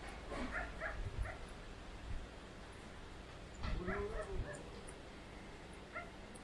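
A dog making faint, short high-pitched calls: a quick cluster near the start and another around four seconds in, one of them a longer call that rises and falls.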